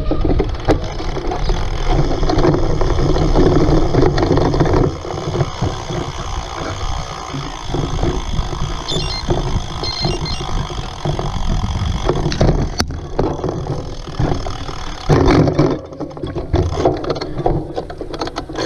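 Cyclocross bike being ridden hard over rough ground: a steady rush of wind on the microphone with frequent rattles and knocks from the bike as it goes over bumps.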